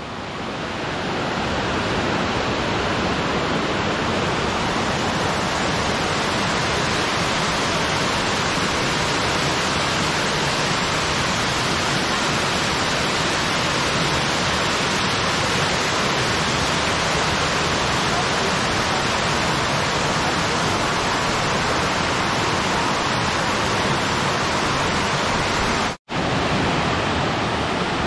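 Steady rush of a waterfall pouring down a rock face into a pool. It fades up over the first second or two and cuts out for an instant near the end.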